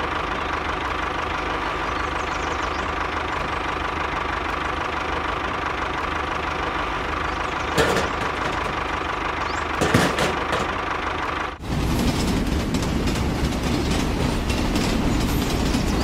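A small motor running steadily with a thin high whine, broken by two short knocks about eight and ten seconds in. About twelve seconds in it cuts abruptly to a deeper, rougher running sound.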